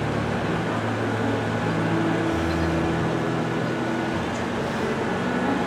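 Boat engine running steadily, a constant hum with low tones that shift in pitch now and then.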